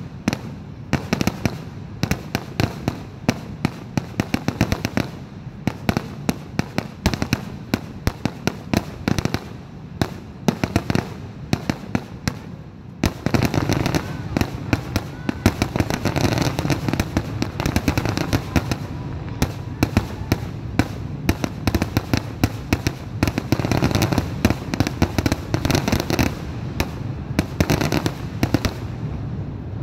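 Aerial fireworks shells bursting in quick succession, many sharp bangs a second. About halfway through the bursts thicken into a denser, louder barrage with little gap between reports.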